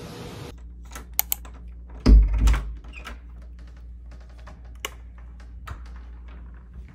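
A door being opened by hand: two sharp clicks about a second in, then a heavy thud about two seconds in, followed by a few lighter clicks and knocks.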